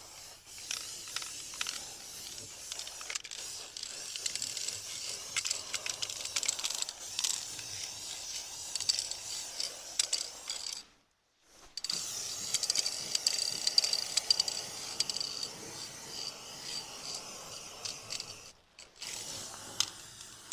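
Heat-resistant paint being applied to the metal front of a used fireplace insert: a scratchy, rattling hiss with small ticks. It breaks off twice for a moment.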